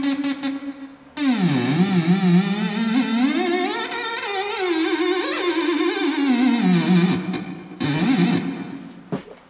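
Homemade theremin playing a single gliding tone with vibrato. It holds a note, then swoops steeply down and back up about a second in, wanders in pitch, and slides down near the end as it fades out.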